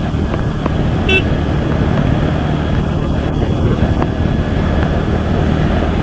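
Bajaj Pulsar N160's single-cylinder engine running steadily while riding. A brief high-pitched beep comes about a second in.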